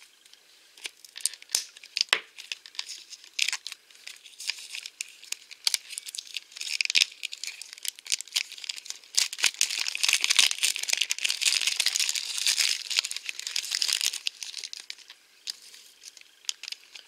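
Thin clear plastic film wrapper being slit with a craft knife and peeled off a small plastic toy case: crackly crinkling with many sharp little clicks, thickest and loudest around the middle.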